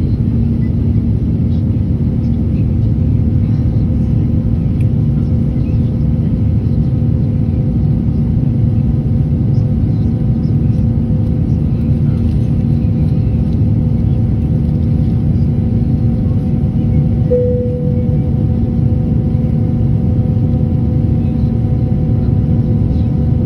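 Airliner cabin noise in cruise: a loud, steady rumble of engines and airflow with a constant hum, and a higher tone that grows louder about two-thirds of the way through.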